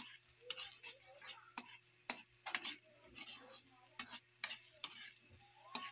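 Metal spatula scraping and knocking against a wok as julienned carrots and onions are stir-fried, in irregular strokes about two a second.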